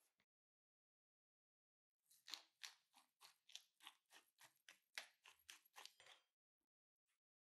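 Hand pepper mill being twisted, about fifteen short grinding clicks at roughly three or four a second. They start about two seconds in and stop a little over a second before the end.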